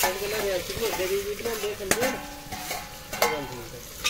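Onions frying in a steel pot over a wood fire while a steel ladle stirs and scrapes the pot, squeaking through the first two seconds, with two sharp metal clinks after that.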